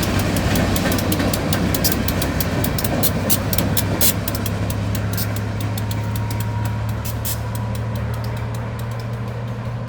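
Short freight train of empty gondola cars and a diesel locomotive rolling past: a steady diesel engine drone under irregular clicks and rattles of wheels on the rails, fading gradually as the train moves away.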